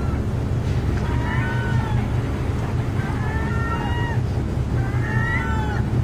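Gull calling: three drawn-out, slightly arched calls about two seconds apart, over a steady low rumble.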